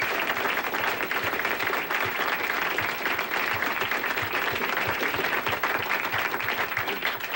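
Audience applauding with many hands clapping at a steady level.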